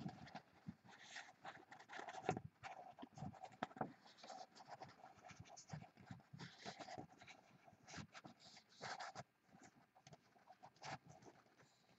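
Faint handling noise: irregular rustling, scratching and small clicks, as of paper or cards being moved about.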